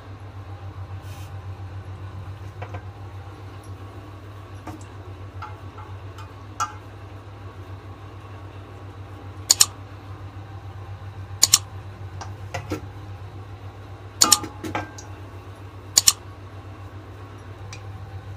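Semolina-dough patties frying in hot oil in a kadai, a steady sizzle over a low hum. About five sharp clinks in the second half are the loudest sounds.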